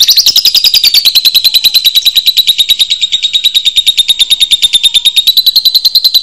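A lovebird's long ngekek: one unbroken, high-pitched, rapid chattering trill that dips a little in pitch during the first second and then holds steady.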